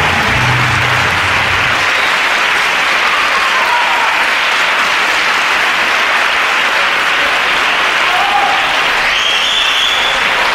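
Audience applauding loudly and steadily as the bulerías music ends. The last notes of the music stop about two seconds in.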